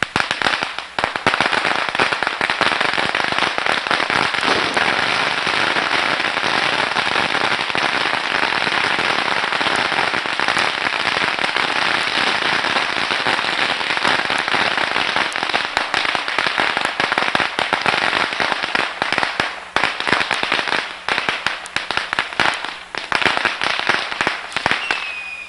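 Firecrackers going off in a dense, rapid crackle of pops that runs on for over twenty seconds, thinning out near the end.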